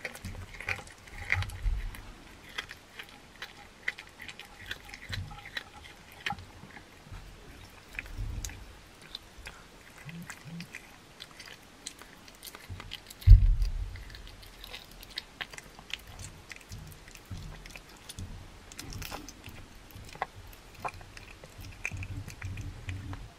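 Cat chewing raw meat and a raw chicken head close up: wet chewing with many small crunching clicks. There is one loud, low thump about 13 seconds in.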